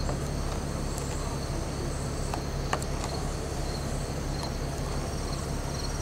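Insects trilling steadily, several high continuous buzzing tones with a faster pulsed trill among them, over a steady low rumble. One small click about halfway through.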